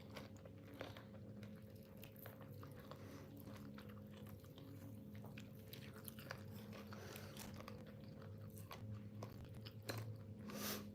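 Faint close-miked chewing and biting of chicken, with irregular small wet clicks and crunches, and a brief louder burst near the end.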